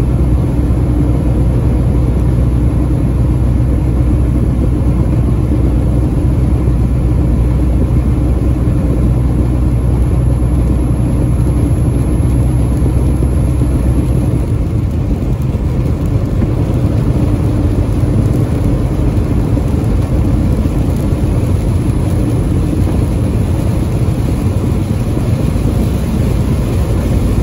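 Semi truck running at highway speed, heard from inside the cab: a steady engine drone under continuous tyre noise on the wet road. About halfway through, the deep engine hum drops away and road noise is left on its own.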